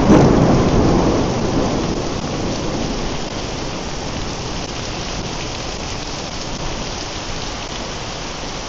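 A thunderclap rumbling close by, loudest right at the start and dying away over about two seconds, over a steady heavy tropical downpour that carries on.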